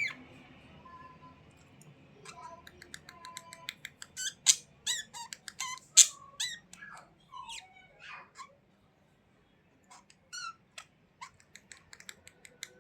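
Budgerigars chirping and squawking in quick, short, high calls, busiest in the middle, with a pause of a second or so about two-thirds through.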